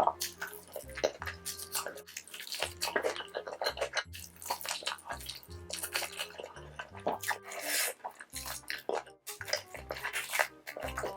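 Close-miked wet chewing, smacking and slurping of someone eating cheesy, spicy food: many quick clicks and squelches, over soft background music.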